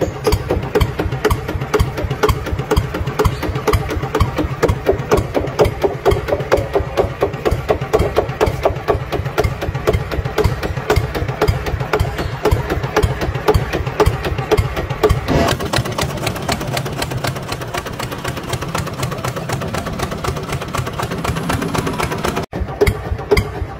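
Tractor engine running steadily with a rapid, even beat. It cuts out for a split second near the end, then carries on.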